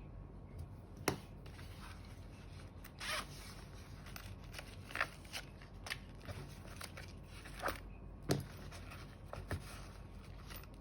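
Scattered handling noises from unboxing a small wireless microphone kit: irregular clicks, scrapes and short rustles, with a sharp click about a second in and another just past eight seconds.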